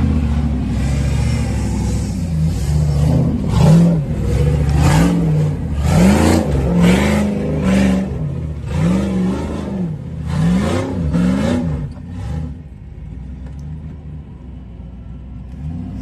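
Lifted Jeep Cherokee XJ's engine revving again and again as it crawls over rocks, the pitch rising and falling with each blip of throttle. About twelve seconds in it settles to a lower, quieter running.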